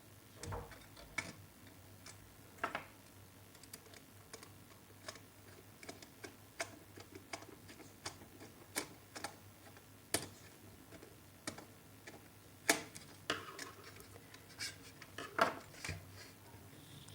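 Scattered small clicks and taps of hands and tools working a wire onto a terminal of a 16 A 5-in-1 switchboard power plug, irregular, with a couple of louder clicks about two thirds of the way through.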